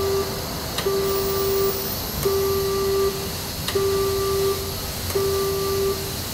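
Animatronic show test cycling a pneumatic head-turn valve: a sharp click followed by a steady single-pitched beep just under a second long, repeating about every one and a half seconds.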